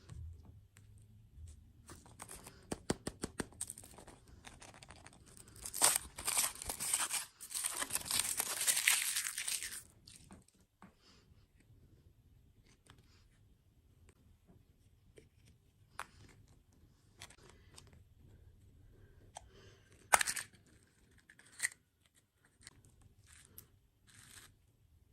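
Food packaging being crinkled and then torn open in one long rip, followed by a few scattered crinkles and a sharp snap.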